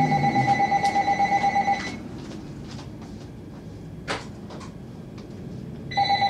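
Telephone ringing with a trilling electronic ring: one ring of nearly two seconds, then a second ring starting near the end.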